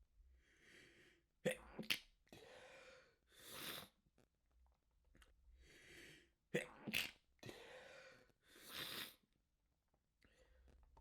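A person's sneezing fit in two rounds. Each round is a breathy build-up, then two sharp sneezes in quick succession, then long rushing breaths.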